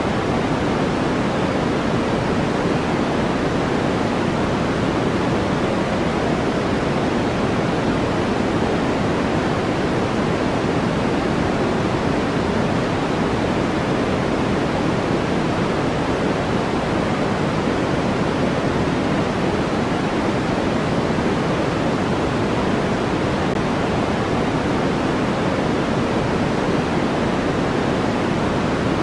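Steady, unchanging noise from a white-noise sleep track: an even rushing hiss with its weight in the low-mid range, with no rhythm, pitch or separate events.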